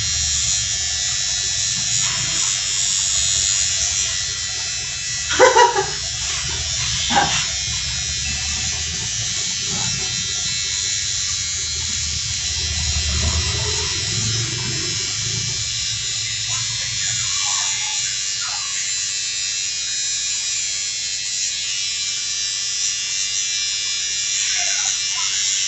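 Electric hair trimmer buzzing steadily as it cuts hair along the jaw and neck. Two brief louder sounds come about five and seven seconds in.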